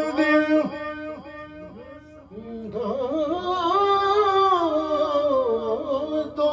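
A man singing an Urdu naat, a devotional poem in praise of the Prophet, unaccompanied into a microphone, in long held notes that glide up and down. The voice drops quieter about two seconds in, then swells into a louder phrase.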